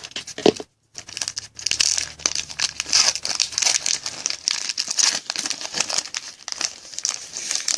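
Trading-card pack wrapper being torn open and crinkled by hand, a dense crackling that runs on after a brief gap about a second in.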